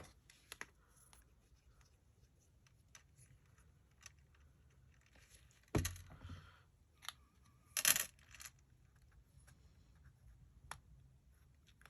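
Scattered small clicks and taps of craft supplies being handled on a table while paper is glued, with a sharper knock about six seconds in and another about eight seconds in.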